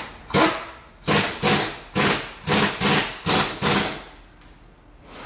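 A run of about eight short, sharp metallic impacts, roughly two a second, from tool work on a Hyundai Elantra's front strut and wheel well. The impacts stop about four seconds in.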